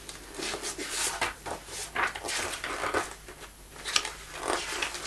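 Paper rustling as a book's pages are turned and handled, in a run of irregular short rustles.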